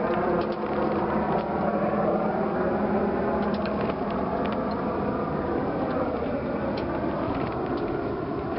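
Sailboat underway at sea: a steady rushing noise, with scattered small clicks and creaks from the boat's fittings.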